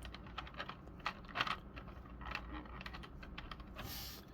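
Light, irregular clicks and taps of small plastic action figure parts being handled, as interchangeable face plates are picked up and set down.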